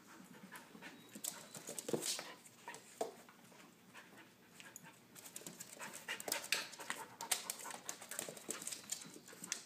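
Siberian husky puppy and another dog play-wrestling: quick panting breaths and scuffling, a jumble of short irregular rustles that grows busier about halfway through.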